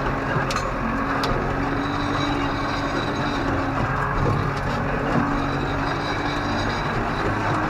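Tractor engine running steadily while pulling a land roller across a field, with a few sharp clicks in the first second or so.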